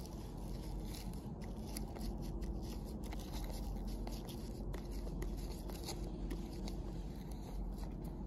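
An estrus scent stick (ConQuest VS-1) rubbed against rough tree bark: a run of dry scratching and crackling strokes over a low steady rumble.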